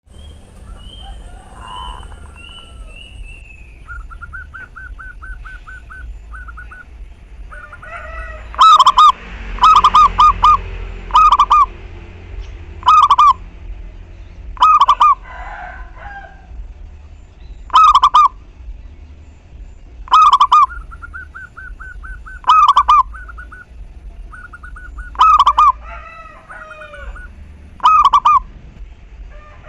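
Zebra dove cooing: loud, short bursts of quick staccato coos, repeated every second or two from about eight seconds in. Other small birds twitter and trill more faintly in the background.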